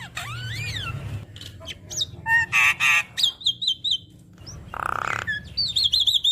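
Javan myna (jalak kebo) singing a varied, mimicking song: rising and falling whistles, harsh rasping notes, and quick trills of repeated notes.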